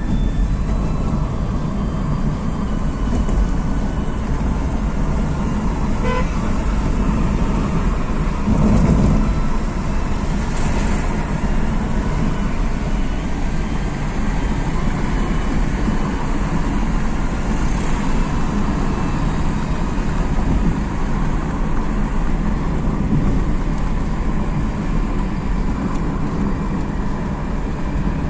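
Steady engine and road noise inside the cabin of a 2008 Hyundai Accent petrol car driving through city traffic, with a car horn tooting.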